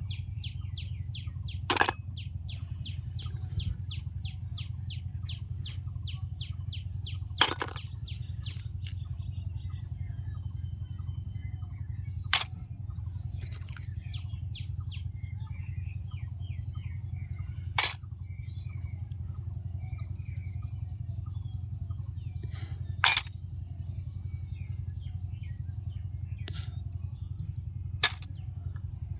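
Birds chirping in quick trills, over a steady low hum, with a sharp click or tap about every five seconds, six in all.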